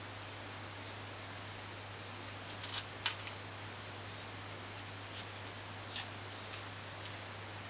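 Faint, scattered sharp clicks and light crackles over a steady low hum, with a small cluster of clicks about a third of the way in and a few more spaced out near the end.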